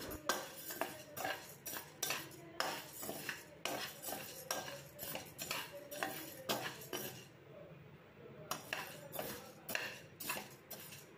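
Flat metal spatula scraping across a nonstick pan, stirring and turning brown rice as it dry-roasts: repeated irregular scrapes with the grains rattling, and a short pause about two-thirds of the way through.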